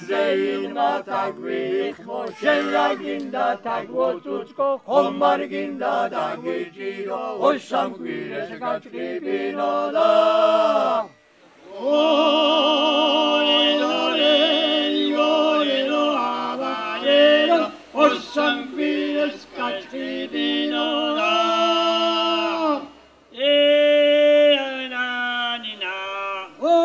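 Three male voices singing a Georgian folk song a cappella in close three-part harmony. A quicker, choppier passage gives way, after a short break, to long held chords, with another brief break near the end.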